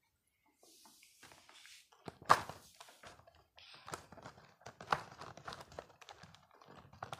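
Irregular light taps and knocks of handling on a desk, the loudest about two seconds in.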